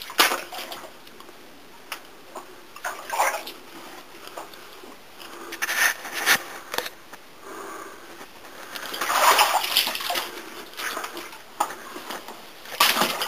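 Footsteps wading through shallow water, a splash and slosh with each uneven step.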